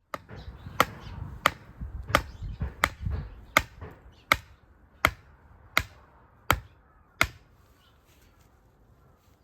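About ten sharp knocks, evenly spaced a little under a second apart, stopping about seven seconds in, over a low rumble during the first few seconds.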